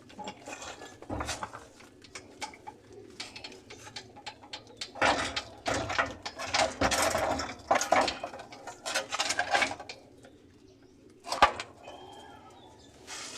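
Irregular scraping, rustling and knocking of hand-tool work under a truck, loudest in the middle, with a sharp click near the end. Birds cooing in the background.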